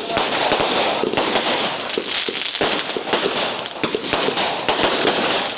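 A string of firecrackers going off continuously, a dense run of rapid, irregular cracks and pops that never stops.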